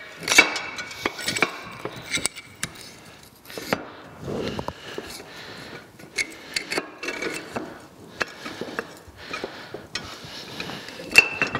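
Cast-iron cane mill gear and its spacer being worked onto a steel shaft by hand: repeated metal clinks, knocks and scraping. A ringing clink sounds about half a second in and another near the end.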